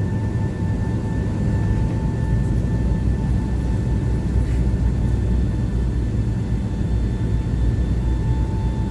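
Jet airliner's engines during takeoff, heard from inside the cabin: a steady heavy low rumble with a thin steady whine above it.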